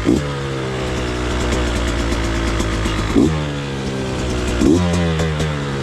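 Beta 200RR two-stroke dirt bike engine idling, with three quick throttle blips: one at the start, one about three seconds in and one near the end. The pitch falls back to idle after each.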